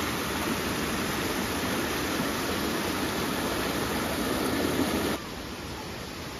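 River water rushing steadily. About five seconds in it drops suddenly to a fainter rush.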